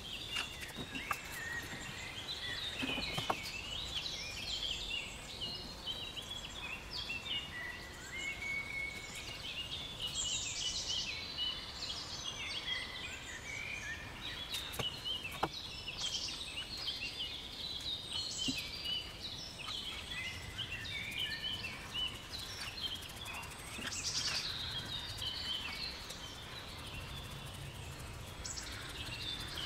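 Several birds singing and chirping continuously, many short high notes and trills overlapping, over a low steady background rumble.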